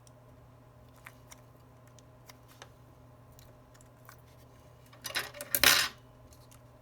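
Small metal repair tools and phone parts being handled on a workbench: a few faint clicks, then a brief, louder clatter about five seconds in.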